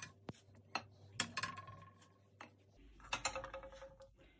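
A few light clicks and knocks of baked cookies being picked off a baking tray and set down on a ceramic plate, a couple of them leaving a brief ringing tone.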